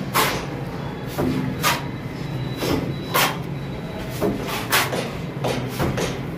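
Cement mortar being scooped with a plastering trowel and thrown onto a wall, heard as a series of short, sharp scrape-and-slap strokes, about a dozen in all, spaced unevenly.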